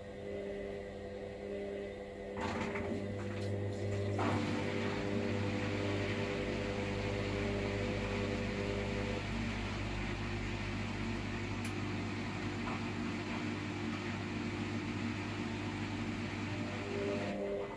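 Hoover washer-dryer on its extra-dry drying cycle: a steady machine hum, joined a couple of seconds in by the drum motor starting up with a few clicks, running steadily for about fifteen seconds and stopping near the end.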